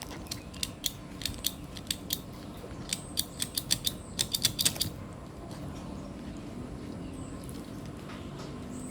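Empty stapler squeezed over and over, about twenty sharp clicks that come faster toward the end and then stop; it is out of staples, so nothing comes out.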